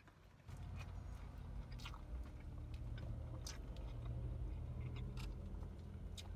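Close-up chewing and mouth sounds of a person eating a hamburger, with scattered soft wet clicks. A steady low rumble starts about half a second in and runs underneath.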